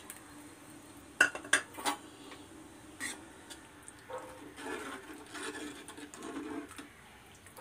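A steel ladle clinks a few times against a metal pan, then stirs through thin, soupy sambar, the clinks near the start and the stirring from about four seconds in.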